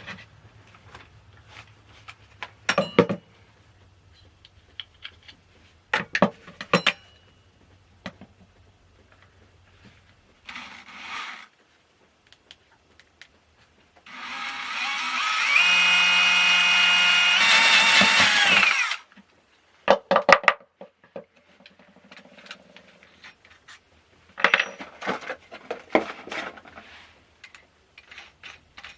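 Power drill boring a pilot hole in a clamp. A short burst about ten seconds in, then a run of about five seconds whose whine rises and then holds before winding down. Sharp clicks and knocks of handled tools and metal before and after.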